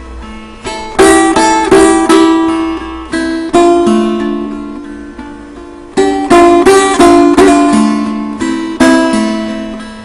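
Kopuz, a Turkic plucked lute, played solo as a free improvisation. Quick groups of plucked notes ring and fade, with quieter held notes between them. The busiest flurries come about a second in and again about six seconds in.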